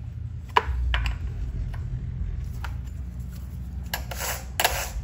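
Handling noises on a chainsaw at the workbench: a few light knocks, then from about four seconds in a run of loud rasping strokes about two a second, over a steady low hum.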